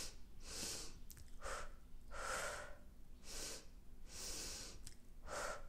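A woman breathing audibly in a slow, deliberate pattern: six airy breaths, alternating longer and shorter, each followed by a short pause. This is the transition-stage labour breathing, with a pause between inhale and exhale, used to ride out the urge to push before full dilation.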